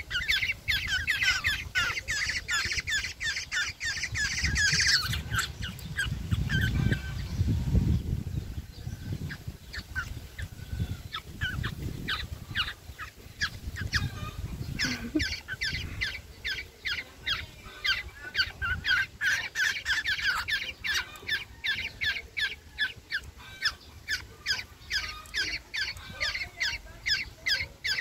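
Black-naped oriole fledglings begging for food with harsh, rapidly repeated squawking calls, about three a second. The calls ease off for several seconds with a low rumble under them, then start up again and keep going.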